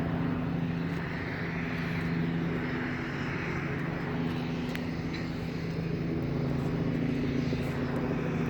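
Steady engine drone with several low held tones over a background rush.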